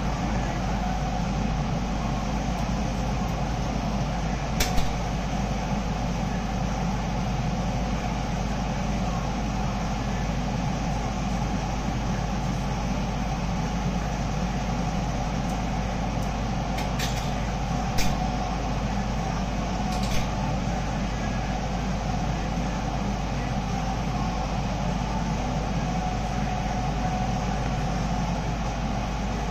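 Steady background machine noise with a low hum runs unbroken. A few short sharp metallic clicks from a flat-wire steel coil spring being handled against a steel workbench come once about five seconds in and three times close together past the middle.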